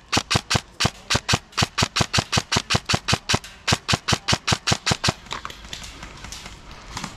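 A rapid, even series of sharp cracks, about five a second, that stops about five seconds in.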